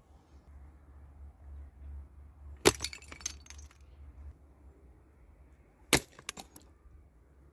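Glass bottles shattering twice, about three seconds apart, as they are hit by shots from a homemade slingshot rifle; each sharp crack is followed by a brief clatter of glass shards.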